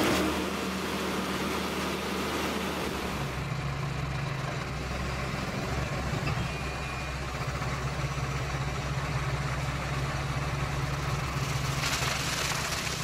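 Machine grape harvester's engine running steadily with a low hum. A broad rushing noise dies down about three seconds in, leaving the hum, and comes back near the end.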